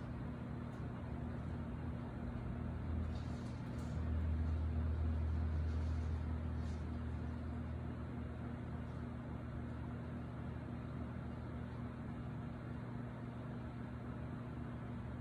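Steady low mechanical hum, like a motor running, with a low rumble that swells for a few seconds starting about four seconds in.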